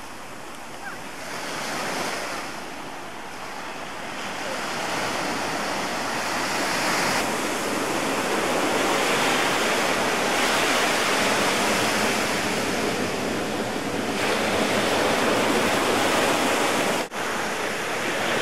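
Ocean surf washing onto a sandy beach: a steady rushing that grows louder a few seconds in, broken by a brief dropout near the end.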